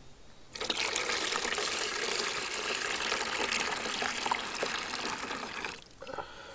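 Water pouring steadily from a container, a gushing stream that starts about half a second in and stops abruptly about a second before the end.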